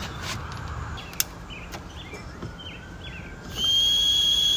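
Propane-fired Burgess insect fogger being lit: a single click about a second in, then about three and a half seconds in the burner catches and a loud, steady, high-pitched whistle starts.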